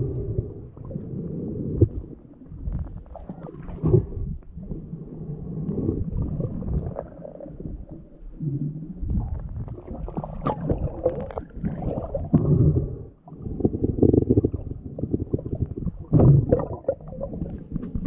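Muffled underwater water noise from a snorkeler moving through shallow seagrass while scalloping: irregular low sloshing surges with a few sharp knocks, heard through a submerged microphone.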